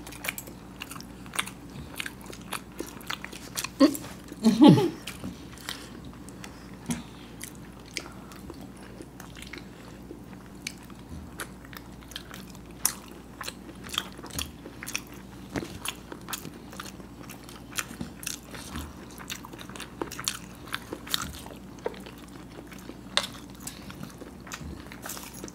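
Close-miked eating of hard-boiled eggs in masala sauce: frequent soft wet clicks and smacks of biting and chewing. A short vocal sound about four and a half seconds in.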